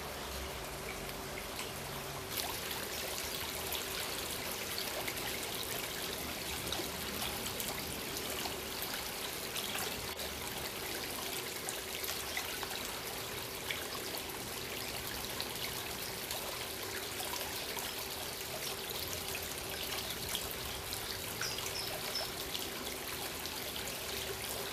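Shallow stream water trickling: a steady watery hiss with many small ticks and drips, which gets a little louder about two seconds in. A faint steady hum lies underneath.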